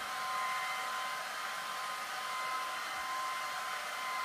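Hair dryer running steadily: a constant rush of air with a steady motor whine, used as soothing white noise to lull a baby to sleep.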